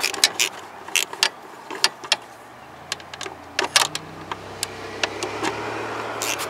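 Irregular sharp clicks and knocks from hands fitting a replacement headlight dimmer switch in a truck's footwell. A low steady hum comes in about halfway through and holds to the end.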